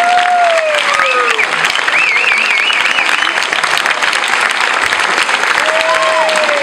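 Audience applauding warmly, with voices calling out over the clapping in long gliding cries: one falling, one high and warbling.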